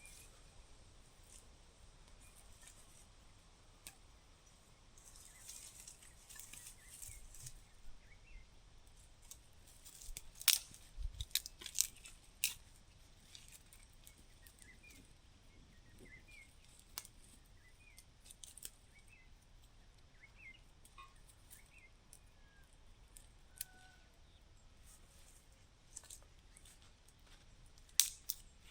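Faint forest background with a stretch of rustling, then a cluster of sharp snaps or clicks about ten to twelve seconds in and two more near the end; short faint chirps come and go through the middle.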